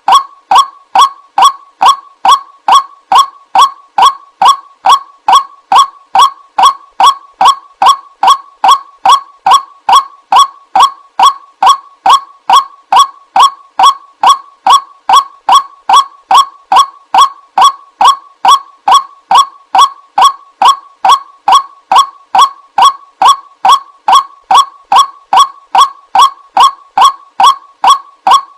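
White-breasted waterhen (Amaurornis phoenicurus) call repeated in an even loop, about two to three short loud 'kwak' notes a second: a lure recording for trapping the bird.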